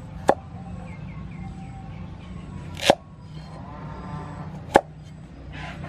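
A knife chopping down onto a cutting board: three sharp knocks about two seconds apart, as vegetables are cut.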